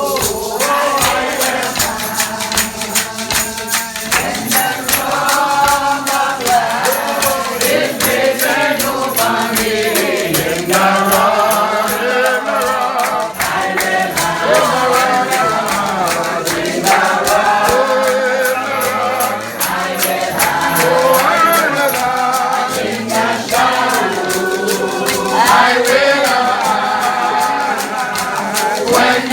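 A congregation singing a hymn together, many voices in unison, with rattling hand percussion shaken in a steady rhythm.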